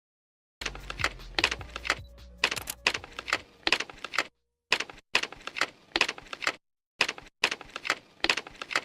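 Sharp clicks and clacks in quick, irregular runs, broken by two short pauses, with a low hum under the first half.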